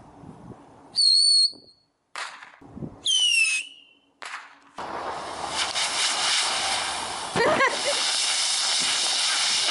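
Two short whistling fireworks about two seconds apart, the first a high, nearly level whistle, the second falling in pitch. Then a ground fountain firework sprays sparks with a steady loud hiss.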